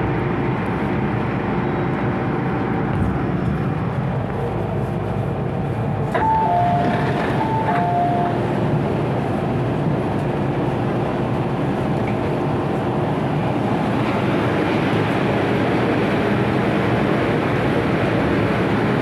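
MTR Tsuen Wan line M-Train running at a station, heard from on board as a steady rumble of motor and wheels on rail. About six seconds in, a two-note chime, high then low, sounds twice.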